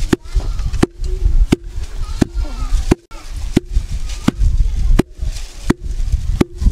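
Wooden pestle pounding groundnuts in a wooden mortar: a steady rhythm of sharp thuds, about three strokes every two seconds.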